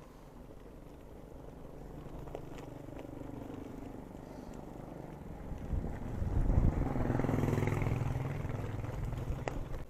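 Steady rumble of a road bike rolling on a wet dirt road, then a motorcycle comes up and passes, its engine loudest about six to eight seconds in and fading near the end.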